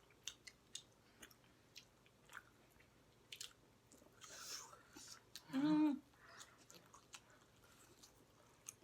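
Close-up chewing and biting of spicy chicken legs, with many small sharp clicks and crunches spread irregularly through the chewing.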